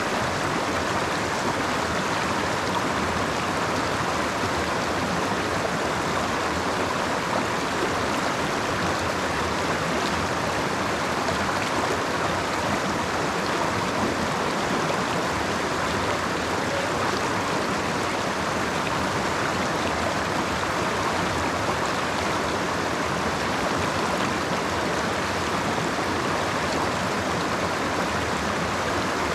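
A creek running over rocks, a steady rushing and splashing of water.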